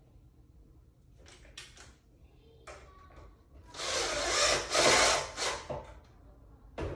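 Cordless drill driving a screw into a pine shelf board, a loud burst of about two seconds starting just past halfway, after a few short rubs and knocks of wood being handled.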